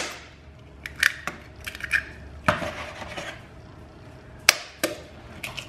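Scattered sharp clicks and taps of kitchen utensils and dishes while eggs are handled, the sharpest about four and a half seconds in.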